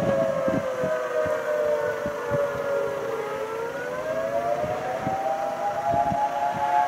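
Outdoor warning siren wailing in several tones at once, the pitch sinking slowly to a low point about halfway through and then climbing back up. It is sounding for a rapidly rotating wall cloud of an approaching supercell.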